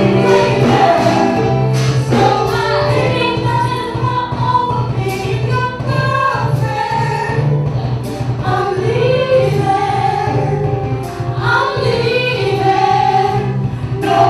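Live band playing while a woman sings lead into a microphone, over keyboards, electric guitar and drums.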